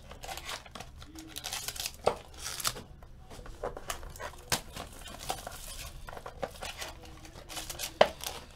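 Foil trading-card packs and a cardboard card box being handled: crinkling foil wrappers and paper rustles, with scattered small clicks and taps, the sharpest about two, four and a half and eight seconds in.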